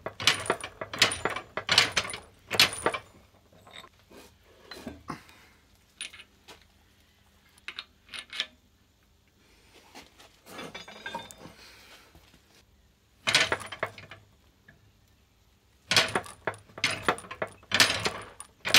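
Sharp metallic clinks and taps of steel tools against a steel block and press as a touch mark is stamped into a forged spring fuller. They come in clusters with quiet gaps: a quick run at the start, fainter taps in the middle, and more strikes near the end.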